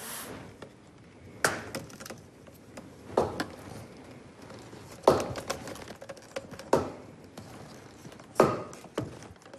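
Sharp knocks and clacks of PVC tubing being handled and worked by hand, five strong ones at fairly even spacing with small clicks between.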